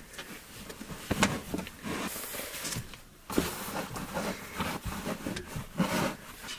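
Clothes rustling as they are pushed into a plywood storage box, with a few light knocks of hands and the lid against the wood.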